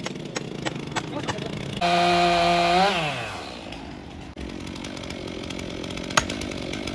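Gas chainsaw revved to full speed for about a second, then dropping back to a steady idle. Near the end there is one sharp knock.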